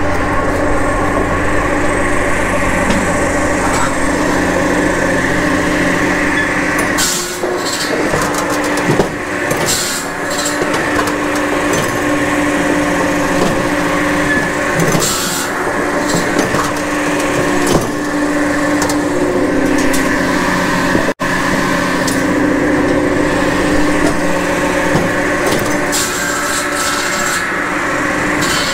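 Japa 700 circular-saw firewood processor running steadily, driven through its PTO shaft by an electric three-phase power pack, with a constant hum. Short bursts of clattering knocks come a few times as logs are handled on the machine.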